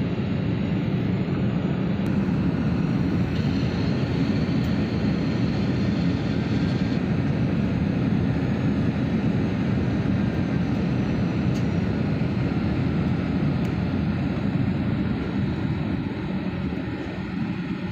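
Steady jet engine and rushing-air noise inside an airliner cabin, heard at a window seat beside the wing's turbofan engine as the plane descends. It eases off slightly near the end.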